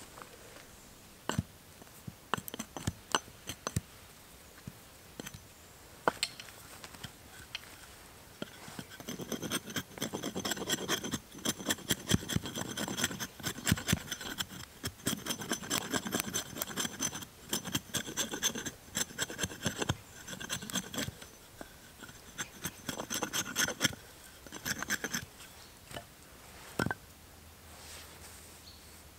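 A few sharp knocks of a small axe on wood, then a knife shaving bark and wood off a green stick held upright on a stump: a long run of quick scraping strokes with a faint metallic ring, and one more knock near the end.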